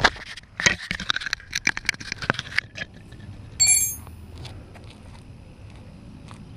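A quick run of metallic clicks and knocks, then a single short bell-like ring from a struck metal object about three and a half seconds in.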